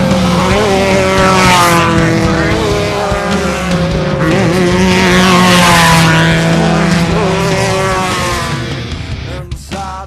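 Off-road desert race vehicle's engine running hard as it passes close, swelling to its loudest about halfway through, then cut off abruptly near the end.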